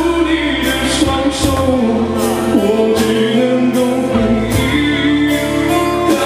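Live band music: a singer singing a Chinese-language song over keyboard, with sustained bass notes and repeated cymbal strokes.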